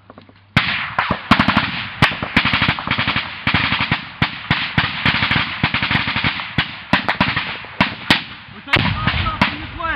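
Heavy automatic small-arms fire in a firefight: a dense string of rapid, overlapping gunshots that starts about half a second in and keeps going, with bursts that barely pause.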